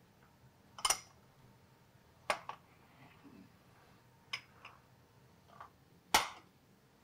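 A handful of short, sharp clinks and knocks of cookware and utensils being handled, about six spread out with quiet between them, the loudest near the end.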